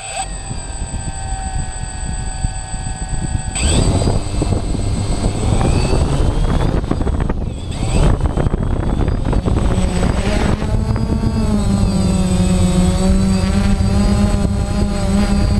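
Quadcopter drone's electric motors and propellers starting up, with a steady high whine, stepping up louder about three and a half seconds in. From about ten seconds in the propeller tone wavers in pitch as the drone throttles up and lifts off.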